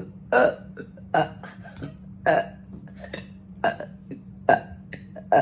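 A person burping on command, forcing out short burps one after another: about six in quick succession, roughly a second apart.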